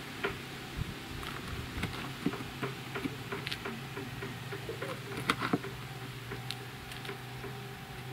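Knife slicing through the firm flesh of an artist's conk bracket fungus on a wooden plank: a run of irregular crunching clicks and taps, loudest about five seconds in, over a steady low hum.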